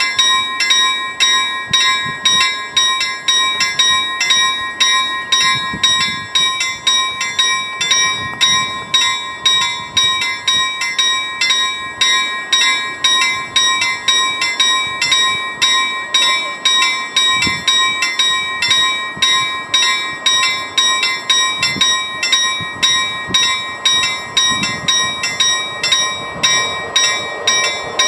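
Railway level-crossing warning bell ringing in rapid, evenly repeated strikes, about three a second, signalling an approaching train. The noise of the train begins to rise near the end.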